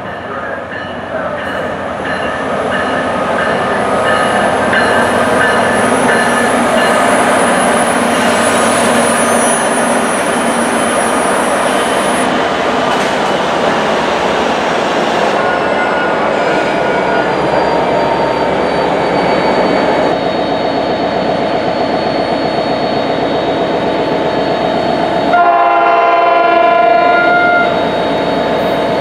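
A commuter train running past on the rails: a long, steady rumble of wheels and locomotive. Near the end a train horn sounds once, held for about two seconds.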